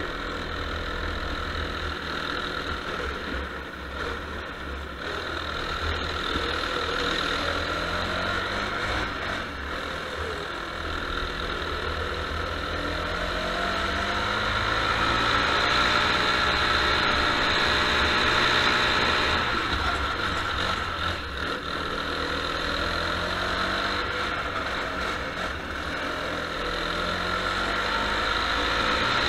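Go-kart engine heard from on board while driving a wet track, its revs rising and falling again and again as it slows for corners and accelerates out, with a steady hiss over it.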